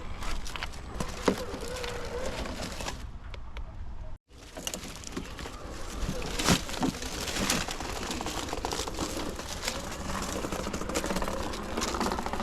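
1/8-scale RC crawler driving over rough ground: its small electric drivetrain running under a steady noise, with scattered clicks and crunches from the tyres and chassis. The sound drops out abruptly for a moment about four seconds in, then resumes.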